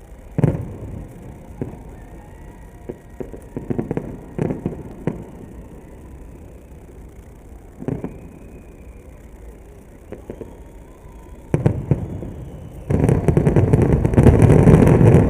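Fireworks going off: scattered single bangs and short clusters of bursts, then near the end a dense, continuous run of bangs and rumble.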